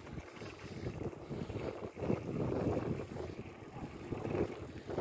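Wind buffeting the microphone with an uneven low rumble from travelling at speed along a paved road.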